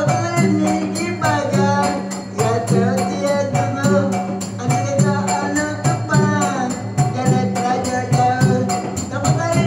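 Traditional wayang kulit ensemble music: a wavering, gliding melody over a low drum figure that repeats about once a second and a fast, even beat of small jingling percussion.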